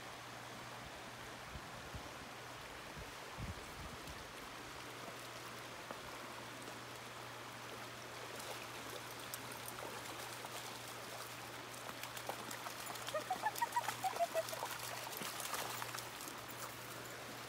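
Shallow stream babbling over stones while dogs wade and splash through it, the splashing picking up in the second half. Late on, a quick run of short, high-pitched squeaky calls is the loudest sound.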